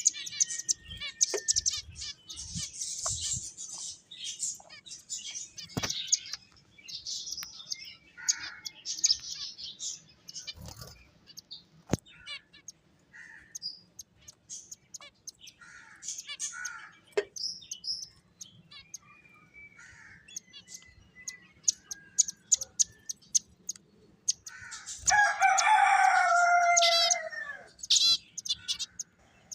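Pet finches chirping in short high notes, with sharp little ticks and clicks among them. Near the end a much louder, lower call is held for about two and a half seconds.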